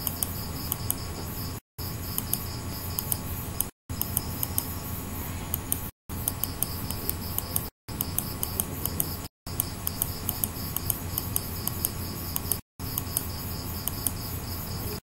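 Computer mouse scroll wheel ticking in short runs of clicks over a steady hiss and hum of the recording, with the sound cutting out to silence for a moment several times.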